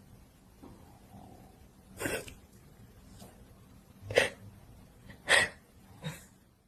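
Four short, sharp sneezes spread over about four seconds, the last one weaker.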